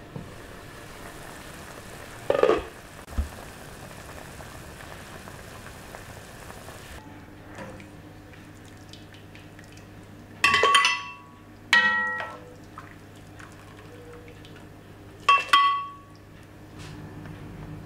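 Pot of tomato soup simmering with a soft steady hiss as its glass lid is lifted off and set down with a clink and a knock. Then a metal ladle scoops soup and clinks three times against the pot and the glass blender jug, each clink ringing briefly.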